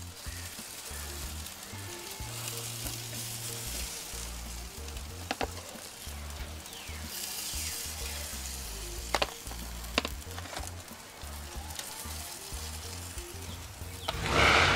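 Sauced chicken breasts sizzling on a hot grill grate as metal tongs lift them off, with a few sharp clicks of the tongs against the grate and a louder rush of noise near the end.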